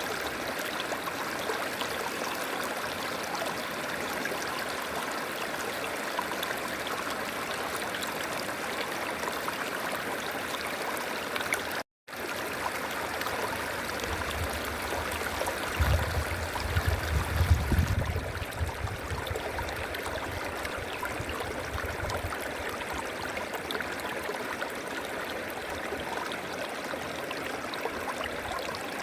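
River water flowing steadily in a continuous rushing stream. About twelve seconds in the sound cuts out for a split second, and a few seconds later an uneven low rumble comes and goes for several seconds before fading.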